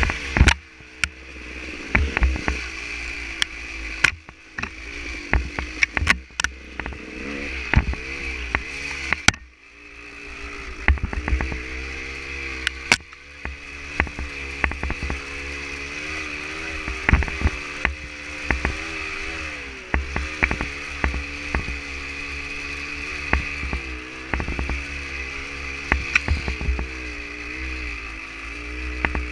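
Dirt bike engine running under load, its pitch rising and falling with the throttle, with frequent sharp knocks and rattles. The engine drops off briefly about nine seconds in, then picks up again.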